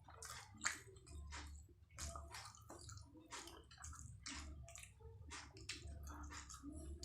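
Close-miked chewing of spicy egg martabak: wet mouth smacks and squelches, about two a second.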